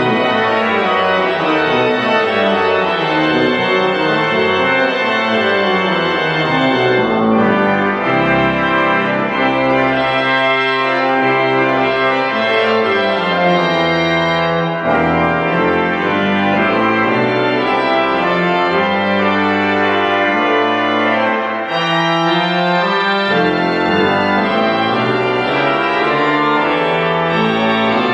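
Pipe organ music from the church's restored pipe organ: a full-voiced piece with several lines moving at once. It pauses briefly between phrases about 15 and 22 seconds in.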